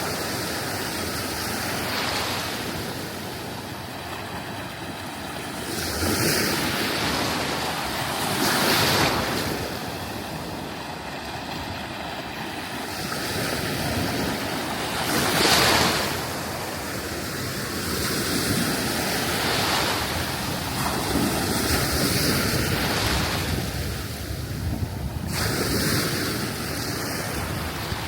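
Sea waves washing onto a sandy beach, with louder breaks about six, nine and fifteen seconds in, and wind on the microphone.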